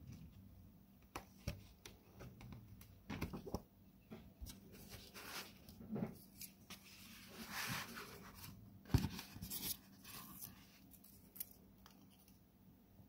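Faint handling of a paperbound book's thick deckle-edged paper pages: soft rustles and swishes as the pages are turned and the book is moved, with scattered small taps and clicks, the loudest a sharp tap about nine seconds in.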